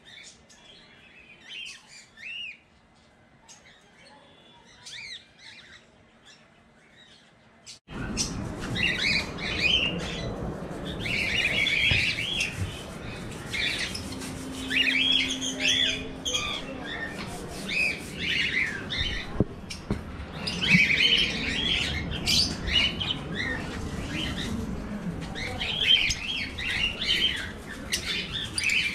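Cockatiels and lovebirds chirping and squawking: faint, scattered calls at first, then from about eight seconds in, many loud, quick chirps close by.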